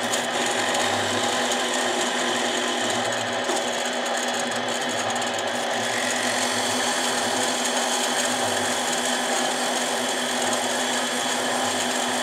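Harbor Freight mini lathe running at a steady speed with a constant motor whine, while a part spinning in its chuck is polished with abrasive held against it by hand.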